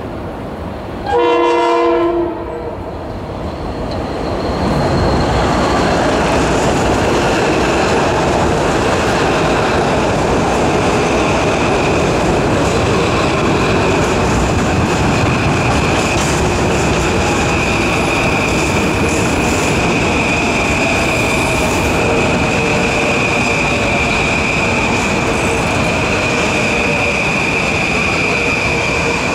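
A Metro-North M8 electric train sounds one short horn blast about a second in. It then runs in alongside on the elevated track with loud wheel and rail noise and a high steady squeal.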